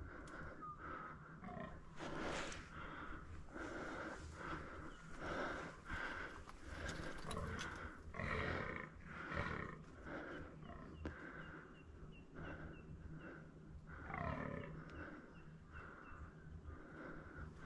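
Rutting fallow buck croaking: a run of short, deep, burp-like croaks about one a second, then another a few seconds later.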